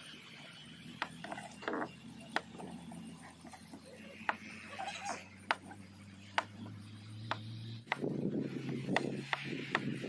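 Kitchen knife cutting a block of canned luncheon meat on a plastic cutting board, the blade knocking the board with each cut, about once a second and unevenly spaced.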